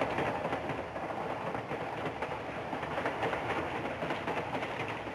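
Steady hissing railway background noise with a low rumble and faint crackle, as of a train standing at the platform.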